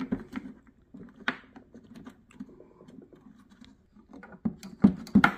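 Small plastic clicks and knocks as a stuck W5W parking-light bulb socket is twisted and worked in the back of a plastic headlight housing, with a cluster of sharper knocks about five seconds in.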